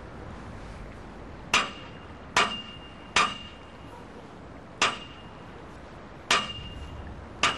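Hammer blows on metal, six strikes at uneven intervals, each with a short metallic ring.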